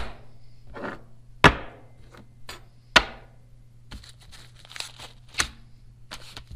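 Small steel hardware (a bolt, a drill bit, a coil spring) set down by hand on a wooden workbench: several sharp knocks about a second and a half apart, with paper parts bags crinkling in the second half, over a steady low hum.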